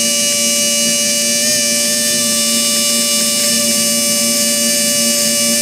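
12-volt electric pump running steadily with a high whine over a hiss, pushing liquid through a carburettor main jet into a flow-test tank.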